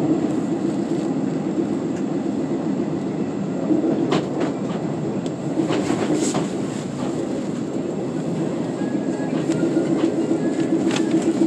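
Running noise inside a Korail Line 4 electric multiple-unit train (set 341x44) moving at speed: a steady rumble of wheels on rail, with a few sharp clicks around the middle and a regular wheel beat growing stronger near the end.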